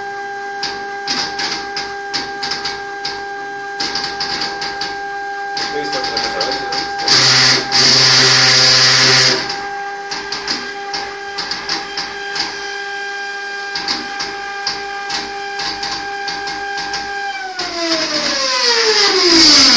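Motor drive of an automated antenna near-field scanner, moving its carriage along an aluminium rail with a steady whine and light ticking. A louder rushing noise lasts about two seconds around a third of the way in. Near the end the whine glides down in pitch as the drive slows.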